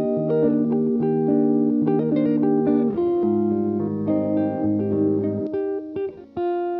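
Background music led by plucked guitar, a melody of held notes over a bass line.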